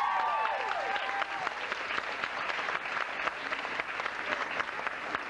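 Audience applauding steadily, with a few high cheering voices over the clapping in the first second or so.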